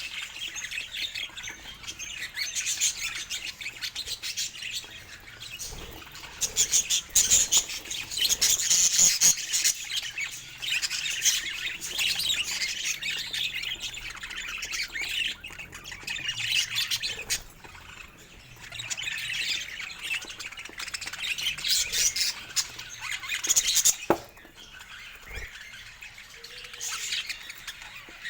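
Budgerigars chattering, chirping and squawking in dense, busy spells broken by a few short lulls.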